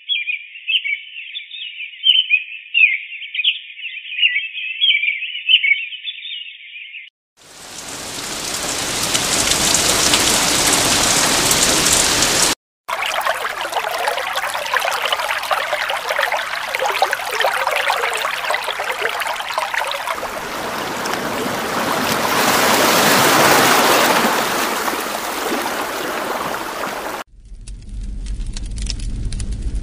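Sound-machine nature and noise tracks played one after another: about seven seconds of high chirping, then a steady hiss of white noise, then a dense rushing sound like rain or running water, which changes again near the end.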